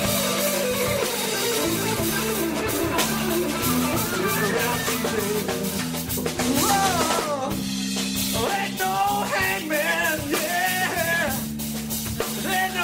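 Live rock band playing an instrumental break: drums and bass steady under a lead line of bent, wavering notes, most of it in the second half.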